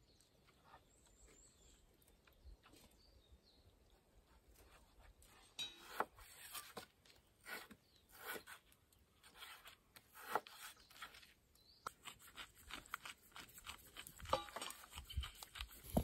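Kitchen knife cutting raw wild boar meat into cubes on a cutting board: irregular knocks and taps of the blade against the board, starting about five seconds in.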